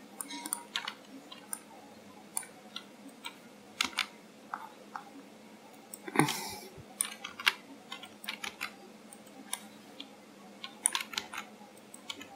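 Computer keyboard keys and mouse buttons clicking irregularly, with one louder thump about six seconds in.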